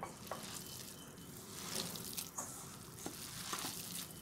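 A hand squeezing and mixing a wet mixture of cooked rice, chopped spinach, grated potato and gram flour: soft squelching with a few small, irregular smacks.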